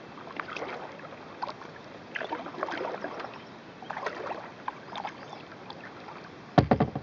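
Kayak paddle strokes: water swishing and dripping off the blades, surging with each stroke about every second. Near the end, a quick run of loud knocks.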